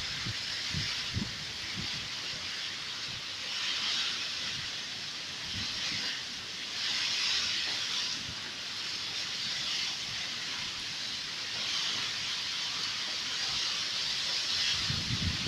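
Heavy rainstorm: a steady hiss of rain that swells and eases every couple of seconds as the storm gusts.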